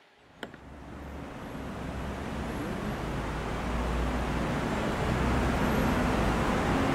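City street ambience with a steady low traffic rumble that fades in over the first two seconds and then holds.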